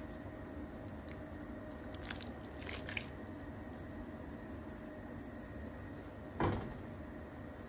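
Cooked chicken pieces tipped from a glass bowl into a pan of thin gravy, with soft wet plops and a few light clinks around two to three seconds in. A single knock follows about six seconds in.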